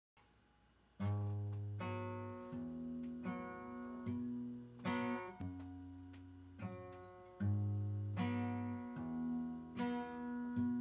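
Steel-string acoustic guitar strummed, starting about a second in. A chord is struck roughly every 0.8 seconds, and each one rings on into the next.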